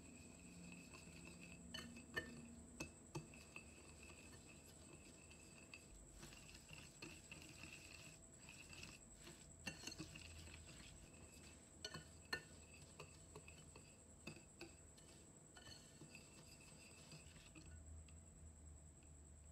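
Faint scraping of a metal wire whisk in a glass mixing bowl, with irregular sharp clinks where the wires strike the glass. The whisk is creaming margarine and brown sugar together.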